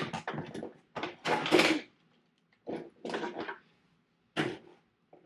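Cardboard box and plastic packaging rustling and knocking in several irregular bursts as a plastic dinosaur action figure is pulled out of its box. The loudest burst comes about a second and a half in.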